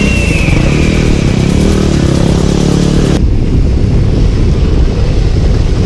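Motorcycle running, with a loud low rumble throughout and a faint falling whistle over the first two seconds. About three seconds in, the sound changes abruptly and loses most of its upper hiss.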